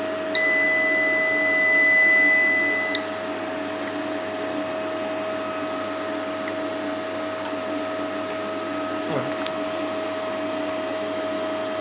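Hybrid inverter's buzzer sounding one long, high beep of about two and a half seconds as the unit powers up, over the inverter's steady electrical hum, which goes on after the beep stops.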